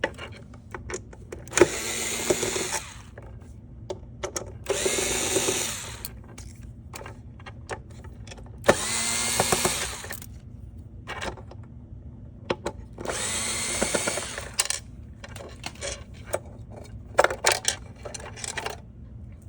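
Power drill/driver running in four short bursts of about a second each, backing out screws, with small clicks and handling noises between the bursts.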